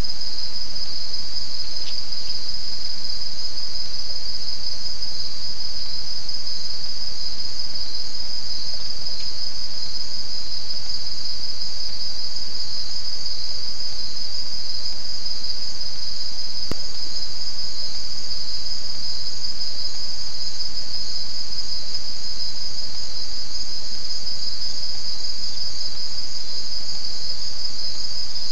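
Night-time rainforest insect chorus: a dense, steady, high-pitched trilling that pulses slightly and never lets up.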